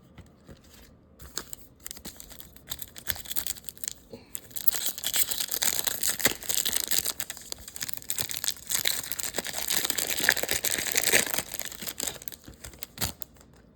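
Foil trading-card pack wrapper crinkling and tearing. Scattered light clicks at first, then a dense run of crackling from about four seconds in, easing off near the end.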